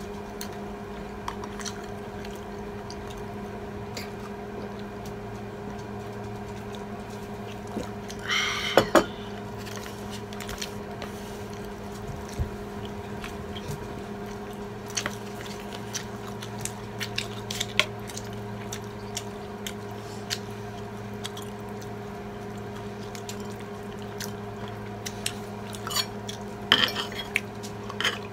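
Metal spoon and fork clinking and scraping on ceramic plates during a meal, in scattered sharp clicks with a louder cluster of clinks and scraping about nine seconds in and again near the end. A steady low hum runs underneath.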